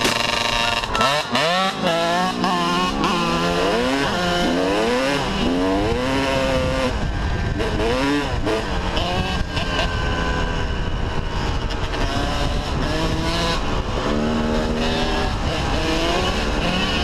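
Kawasaki motocross bike engine under hard riding, revving up and down: the pitch climbs with each burst of throttle and drops back at the gear changes, over and over.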